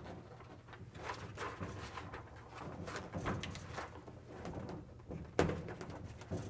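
Dynamat sound-deadening mat and its paper backing crinkling and rustling as hands press the foil-faced sheet up onto the inside of a car roof. A sharp tap comes about five seconds in, over a low steady hum.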